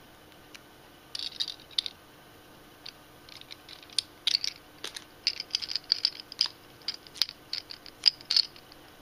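Small plastic toy cars and a sticker sheet handled by hand: a run of light plastic clicks, taps and rustles. A few come about a second in, and they grow busy over the second half.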